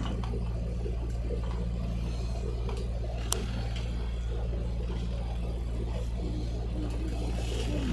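A boat's engine running steadily under way, a constant low drone, with one sharp click about three seconds in.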